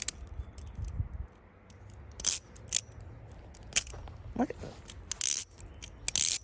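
Squid Industries Mako V3 balisong being flipped: sharp metallic clacks of the handles swinging around and slapping together, about half a dozen spaced irregularly.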